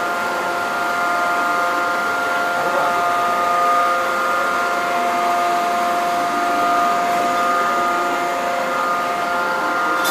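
Machinery running steadily: a constant drone with several steady whining tones held at one pitch.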